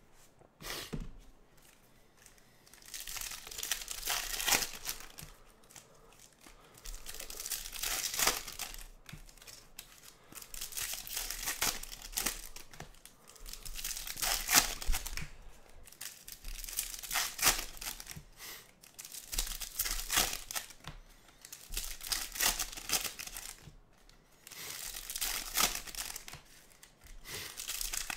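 Foil wrappers of Topps Chrome baseball card packs being torn open and crinkled by hand, one pack after another, in repeated crackly bursts a few seconds apart.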